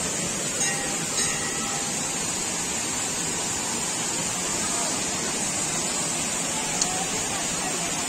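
Steady rush of water falling at a waterfall, an even unbroken noise, with a few light clicks early on and near the end.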